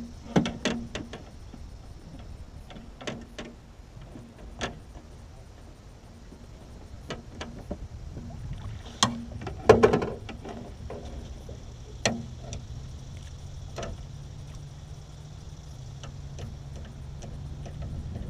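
Scattered knocks and clatter on a jon boat's deck and a plastic cooler as a landing net with a snakehead is handled and lifted into the cooler, the loudest bangs about nine to ten seconds in. A low steady hum comes in during the second half.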